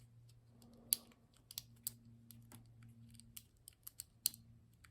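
Small, irregular metallic clicks and taps of a disc detainer pick and tensioner working the rotating discs of an Abloy Classic lock, about a dozen over the few seconds, with a faint steady hum underneath. The picker blames too much tension and oversetting the discs.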